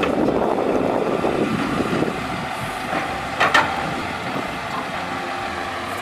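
Automated side-loader garbage truck running while its mechanical arm grabs and lifts a wheelie bin, with a short clatter about three and a half seconds in.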